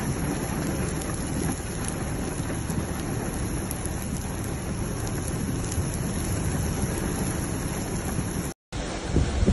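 Heavy rain falling steadily on wet ground and a streaming road, an even hiss of rain. It cuts out for a moment near the end.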